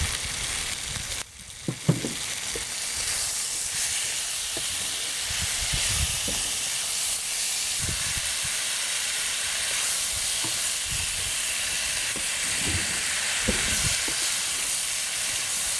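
Curry sauce with octopus sizzling steadily in a frying pan as it is stirred, with a few soft knocks of the utensil against the pan. The sauce is being cooked down to thicken it.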